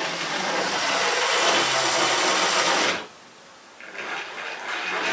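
OO gauge model locomotives whirring along the track, their small electric motors and wheels running with a steady rattle. The running cuts off abruptly about three seconds in and starts again about a second later.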